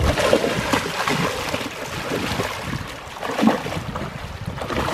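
Shallow river water splashing and sloshing around a landing net as a netted Atlantic salmon struggles in it. The splashes are irregular, with the loudest about three and a half seconds in.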